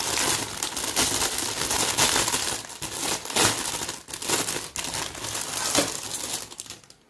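Thin clear plastic packaging bag crinkling and rustling as it is handled and a flat wooden piece is pulled out of it; the rustling dies away near the end.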